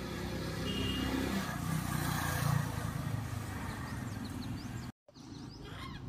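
A motor vehicle's engine running, a steady low hum that swells about two seconds in and eases off, with the sound cutting out for a moment about five seconds in.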